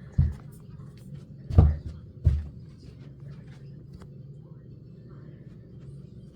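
Ceiling fan motor running with a steady low hum. Three dull thumps come close together in the first two and a half seconds, the second the loudest.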